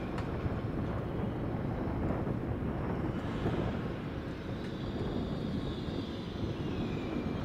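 Swiss SBB RABe 503 (Alstom ETR 610) high-speed electric train rolling slowly past, a steady low rumble with a high whine that slides down in pitch near the end.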